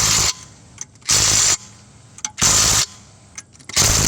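Impact wrench running in short bursts, about every second and a half, with small clicks in between: lug nuts being run down as a front wheel goes back on.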